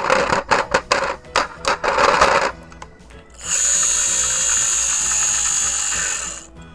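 A quick run of small plastic clicks and rattles, then a steady high-pitched whir for about three seconds that cuts off near the end, over faint background music.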